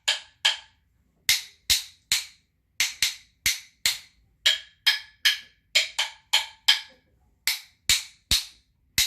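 Pair of wooden rhythm sticks struck together, tapping out short rhythm patterns: quick groups of three and four sharp clicks with brief pauses between them.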